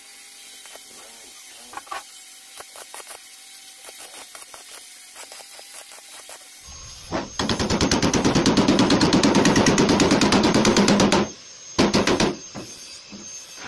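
Stick (arc) welding on a steel vise jaw: the arc crackles loudly and rapidly for about four and a half seconds from around the middle, then in a couple of short bursts near the end. Before that only light scattered ticks are heard.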